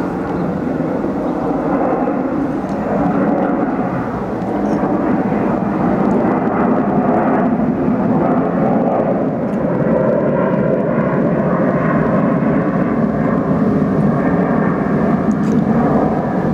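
Jet noise from a McDonnell Douglas MD-11 freighter's three turbofan engines as it passes overhead: a loud, steady rumble and rush that gets a little louder about three seconds in.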